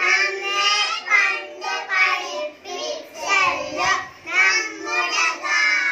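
A group of young children singing a song together into a microphone, in short phrases with brief breaks between them.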